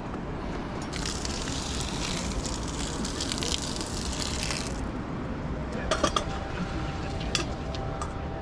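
Hot seawater from a crab boil poured out of a steel pot onto dirt and dry grass, a splashing hiss lasting about four seconds. Then come a few sharp clacks as the boiled crabs are handled in the pot.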